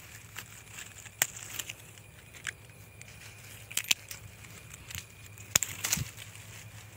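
Hand pruning shears snipping small shoots and twigs at the base of a fig tree's trunk: about five sharp, separate snips a second or so apart, the loudest one a little past halfway.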